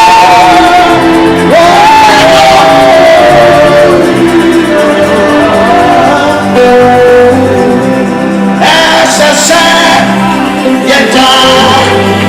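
Gospel worship music: a lead vocalist singing long, sliding notes over a live band with bass and guitar, in a large hall.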